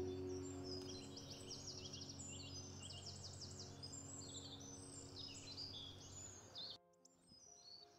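Faint birdsong: many quick, high chirps from several birds, over soft held background-music tones that fade away. Both cut off abruptly to near silence about seven seconds in.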